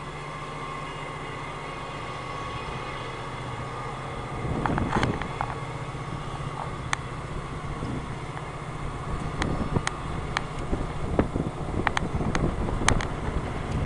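Distant CSX mixed freight train running by: a steady low diesel locomotive drone, then an irregular run of sharp clicks and clanks from the rolling cars, building in level toward the end.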